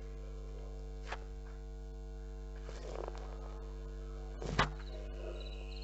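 Marq smart speaker's Google Assistant good-night sleep sound playing quietly over a steady hum. There is a faint click about a second in and a short knock about four and a half seconds in.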